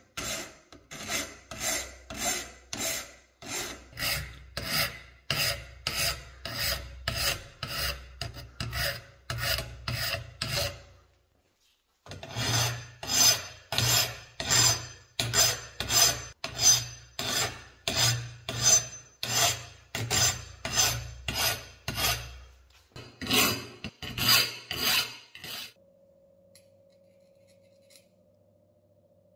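A flat hand file rasping back and forth over cast iron, about two strokes a second, with a short pause about eleven seconds in. The strokes stop a few seconds before the end, leaving only a faint steady hum.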